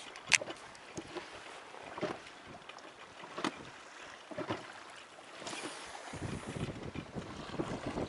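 Strong wind buffeting the microphone over choppy water around an inflatable boat, with scattered sharp clicks and knocks, the sharpest just after the start. A heavier gust rumbles in about six seconds in.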